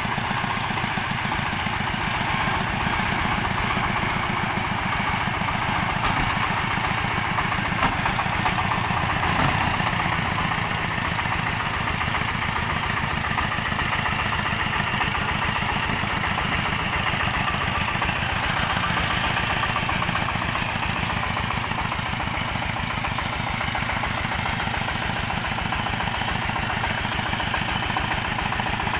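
Chinese D30 single-cylinder diesel engine on a water-channel ditching machine running steadily with a fast, even beat while the machine drives along on its cage wheels.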